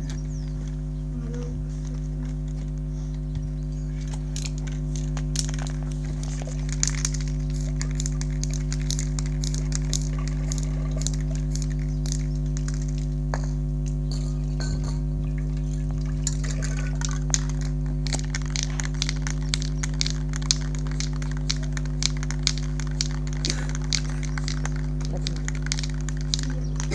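Aerosol spray-paint can used in many short, sharp bursts, which come thicker in the second half, against a steady low hum.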